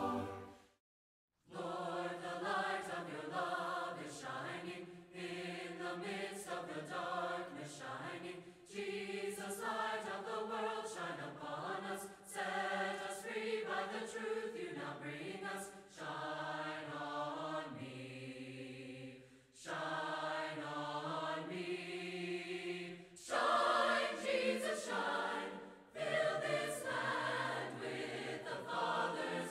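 A choir of voices singing a hymn in harmony, coming in after a moment of silence about a second in and going on in phrases of a few seconds with short breaks.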